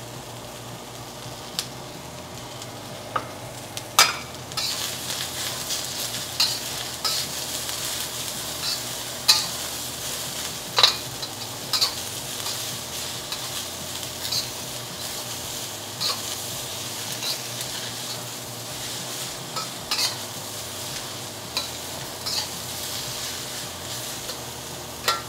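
Shredded cabbage sizzling in a hot carbon steel wok while a metal wok spatula stirs and tosses it, scraping and clicking against the wok every second or two. The sizzle grows louder about four seconds in as the stirring picks up.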